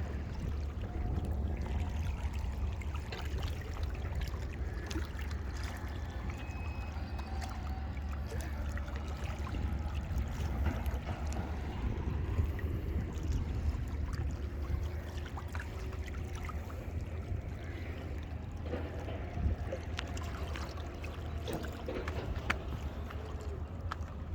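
Sea waves washing against a rock breakwater under a steady low rumble, with scattered short clicks.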